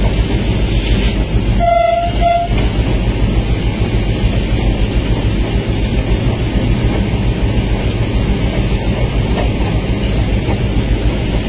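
Train passing through a station at speed, heard from the front of the locomotive: a steady rumble of running and wind noise. About two seconds in, the locomotive horn gives two short blasts.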